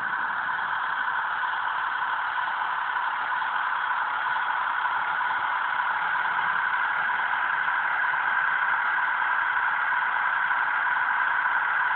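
HO scale model freight locomotive running on its test run, its sound-effects unit playing a steady engine sound through a small speaker; the sound gets a little louder partway through.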